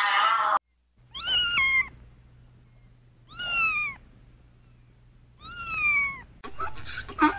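Domestic cat meowing three times, about two seconds apart, each meow under a second long and falling in pitch. A loud pitched sound cuts off sharply in the first half-second, and a different choppy, clicking sound starts near the end.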